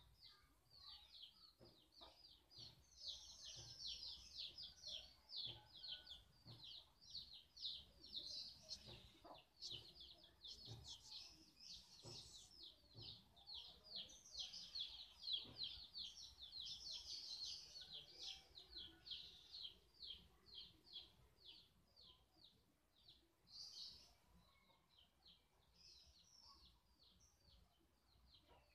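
Faint, continuous chirping of small birds: a rapid run of short high chirps, about four or five a second, that thins out near the end.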